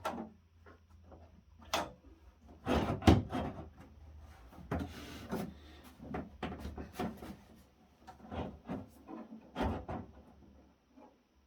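Housing panels and cover of a StepOnePlus real-time PCR instrument being worked and wiggled by hand: a string of irregular clicks, knocks and rubbing, the loudest knocks about three seconds in.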